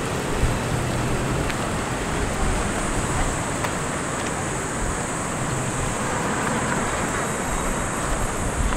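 Steady urban ambience dominated by road traffic, with a constant high hiss over it.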